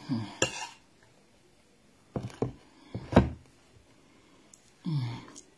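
Metal spoon knocking and scraping on a ceramic plate while scooping rice, a handful of sharp clicks. Two short low hums, one at the start and one near the end.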